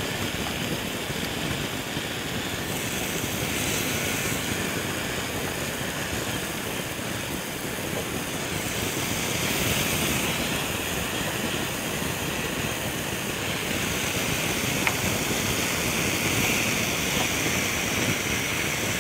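Marinated chicken pieces sizzling on a hot, unoiled grill pan over a gas burner, a steady hiss that swells a little as more pieces are laid in, with a few faint clicks.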